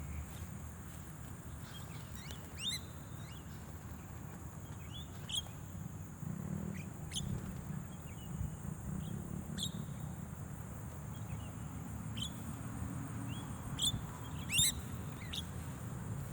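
Scattered short, sharp calls of Javan mynas (jalak kebo), about eight in all, two coming close together near the end, over a low background rumble.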